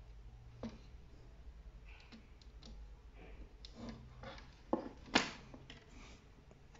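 Small hand screwdriver working screws into a ring light's frame: scattered light clicks and taps, the loudest two close together a little past the middle.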